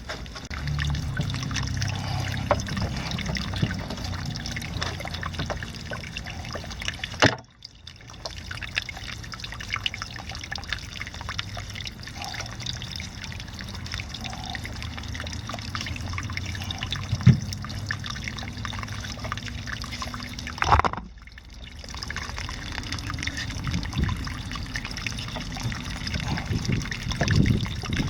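Water trickling and splashing over a low steady hum. The sound cuts out briefly twice, about a third of the way in and about three quarters through.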